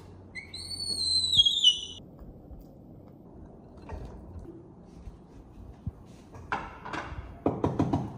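A young monkey gives a high-pitched squeal that falls in pitch and lasts about a second and a half. Near the end comes a quick run of knocks and rattles.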